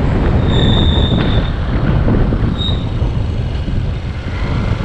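Wind buffeting the microphone over a motorbike's engine and road noise while riding, with two high-pitched squeals, the first about a second long and the second brief, near the middle.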